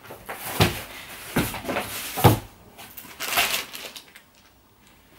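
Rummaging through a plastic carrier bag and a cardboard box: rustling plastic and cardboard with a few dull knocks, three of them in the first two and a half seconds.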